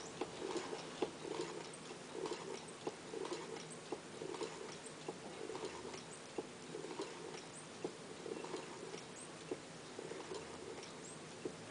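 Faint rustling with scattered light clicks and taps, irregularly spaced, as of small parts and wires being handled on a bench.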